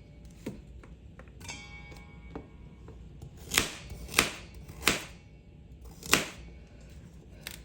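Kitchen knife chopping baby carrots on a cutting board: a few separate, unhurried strokes, most of them in the second half, over faint background music.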